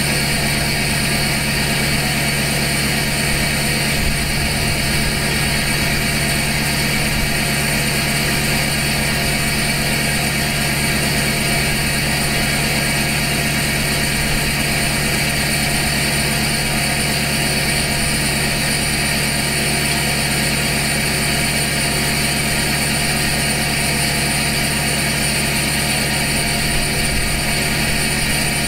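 2012 LML Duramax 6.6-litre V8 turbodiesel idling steadily through a 5-inch straight pipe to an axle dump, with no muffler, while still warming up after a cold start in below-freezing weather.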